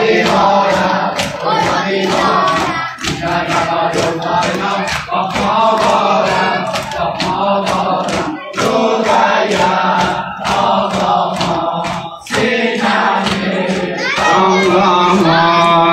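A group of male mourners chanting a noha while slapping their chests in unison, about two beats a second. Near the end a louder singing voice comes in over the chant.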